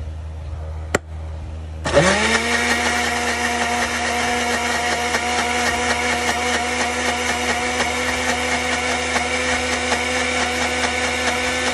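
Electric countertop blender switched on about two seconds in, its motor spinning up quickly and then running at a steady pitch while it purees ginger, onion and garlic into a paste. A single sharp click comes just before it starts.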